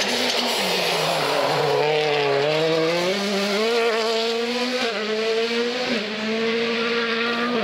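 Rally car engine revving hard through a slide: the pitch drops, climbs back up, then dips briefly twice about five and six seconds in as the driver lifts or shifts, with tyre and loose-gravel noise under it.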